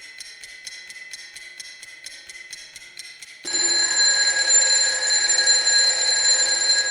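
A clock ticking rapidly and evenly, then about three and a half seconds in a loud, continuous alarm bell starts ringing.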